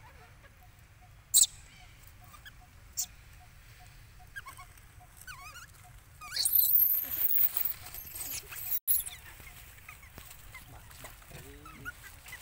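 Baby macaque shrill screaming, a burst of high, sweeping cries lasting about two seconds just past the middle, with softer chirps before it and a sharp click near the start.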